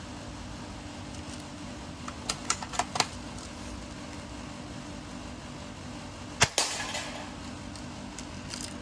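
Airsoft gun being handled and fired: a quick run of sharp mechanical clicks, then about six and a half seconds in a single sharp shot followed by a brief hiss of released air.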